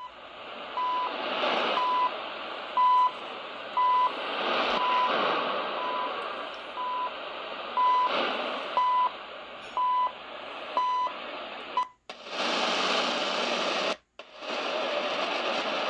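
CHU Canada time signal on 3330 kHz played through a Tecsun PL-990x shortwave receiver's speaker: a short high beep once a second over shortwave static that fades up and down. About twelve seconds in the beeps stop, and after a brief dropout there is only steady static as the radio is tuned to another frequency.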